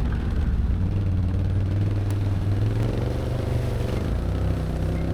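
ATV engine running steadily under way on a trail, a low engine note with a slight rise in pitch in the second half.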